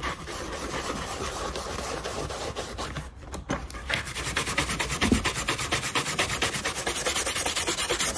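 A damp cloth rubbing over an embossed chair-seat panel, then, after a short pause, a small wet stiff-bristled brush scrubbing the relief in fast, short strokes. The scrubbing clears water-based wood filler out of the pattern while it is still soft and setting up.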